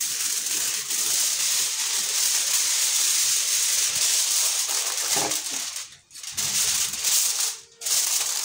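Aluminium foil crinkling as it is handled and pressed over a casserole dish: a continuous crackle for about six seconds, then a few shorter bursts.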